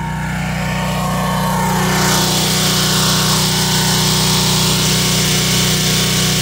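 Gas-engine pressure washer running steadily. The hiss of its high-pressure water spray comes in about two seconds in and holds.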